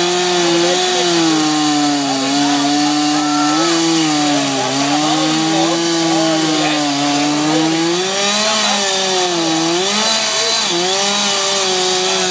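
Two-stroke chainsaw running at full throttle, cutting into an upright wooden log; the engine note sags and recovers several times as the chain bites into the wood under load.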